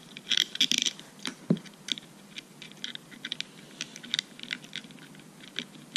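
Irregular small clicks and scrapes of fingers fastening a test lead under the thumb nut on the terminal of a meter's resistance bobbin.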